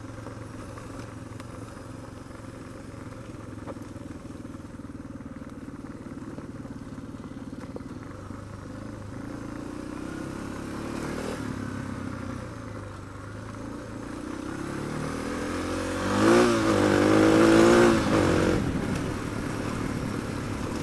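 Suzuki DR650's single-cylinder four-stroke engine running steadily at low speed, heard from the rider's helmet camera. About sixteen seconds in it revs up with a rising pitch and gets louder as the bike accelerates, with wind noise growing over the microphone.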